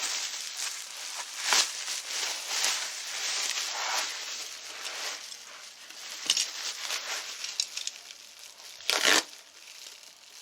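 Packing material crinkling and crumpling as a shipped package is unwrapped, with several sharper crackles, the loudest near the end.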